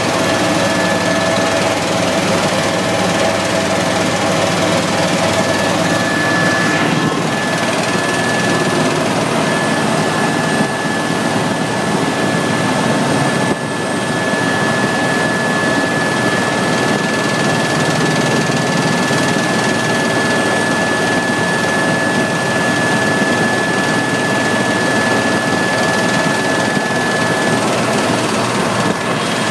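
Helicopter engine and rotor noise heard from inside the cabin in flight, loud and steady, with a steady high-pitched whine running through most of it.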